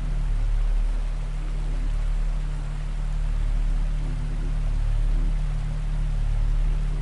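Steady rushing noise like running water over a low, steady hum, the ambient bed of a subliminal affirmation recording.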